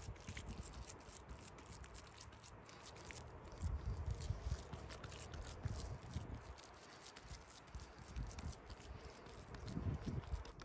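Hands pressing and patting minced pork flat on a wooden cutting board: soft, wet squishing with dull pats, louder for a spell around the middle and again near the end.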